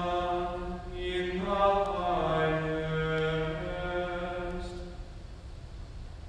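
A man's unaccompanied voice singing a slow liturgical chant in long held notes, ending about five seconds in.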